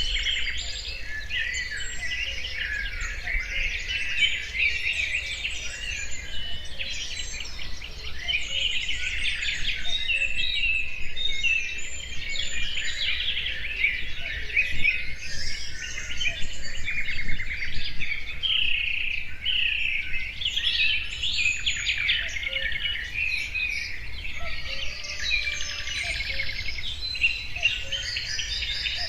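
Many birds singing at once: a dense, continuous chorus of chirps, trills and short whistles, with a faint low rumble underneath.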